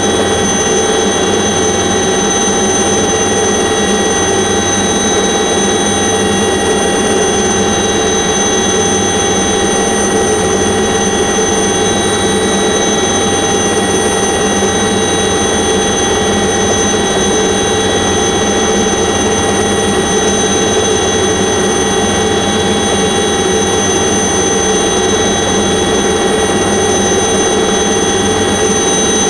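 Light aircraft's engine and propeller droning steadily, heard from inside the cockpit, with a slow throb in the low end about every two seconds.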